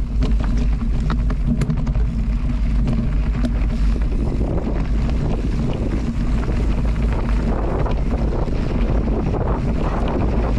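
Wind buffeting the microphone in a steady low rumble, with scattered sharp clicks and rattles in the first few seconds.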